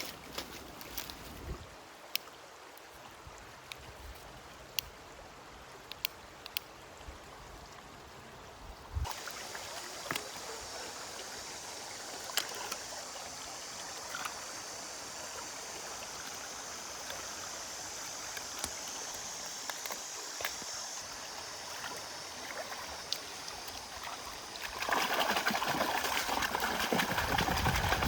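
River water running, with scattered sharp clicks and snaps. Nearer the end the water becomes a louder, steady rush.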